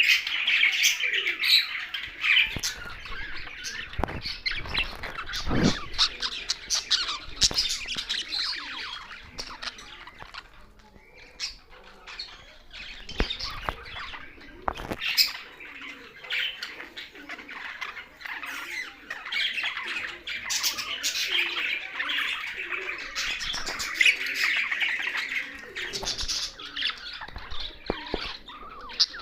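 A flock of pet budgerigars chirping and warbling continuously, mixed with parrot squawks and scattered sharp clicks, with a quieter lull about ten seconds in.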